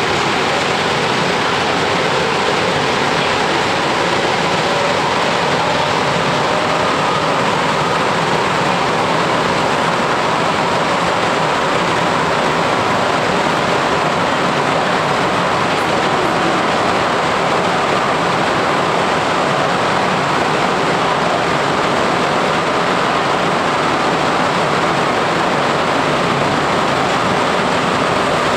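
Running noise inside a rubber-tyred MR-63 metro car under way: a loud, steady rush. A faint whine rises in pitch over the first several seconds, then settles into steady tones.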